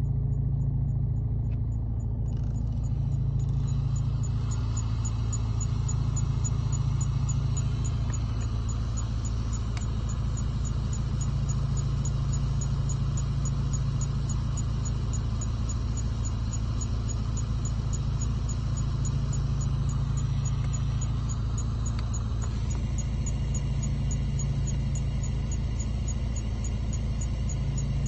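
CHGeek QC3.0 Bluetooth FM transmitter beeping: a steady, evenly spaced train of faint high-pitched pips, a few a second. Beneath it, the steady hum of a car with its engine running.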